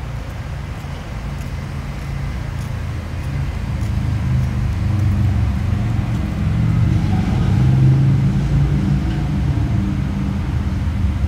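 Motor vehicle traffic: a low engine and road rumble that grows louder to about eight seconds in, then eases off.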